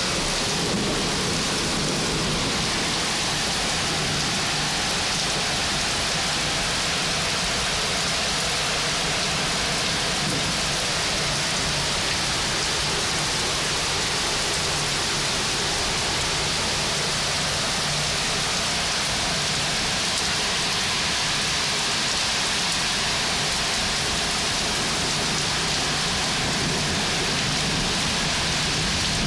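Heavy rain falling steadily in a rainstorm, a dense, even hiss that holds at the same level throughout with no let-up.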